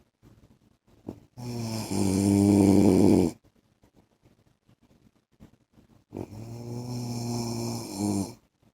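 A man snoring in his sleep: two rough, buzzing snores, each about two seconds long and about five seconds apart, with quiet breathing gaps between. The first snore is the louder and grows louder partway through.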